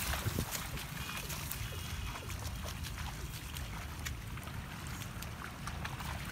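Splashing and sloshing in shallow muddy water as feet and hands move through a flooded rice field, with many small splats and drips over a steady low rumble.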